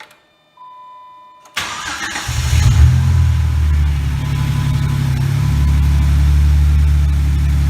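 Jeep engine cranking and catching, briefly revving up, then settling into a steady idle: it starts after its burnt wiring harness was replaced and its TIPM soft-reset. A short steady electronic tone sounds just before the cranking.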